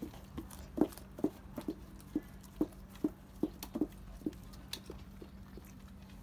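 Black Labrador retriever chewing food, with regular chomps about two to three a second that stop about four seconds in.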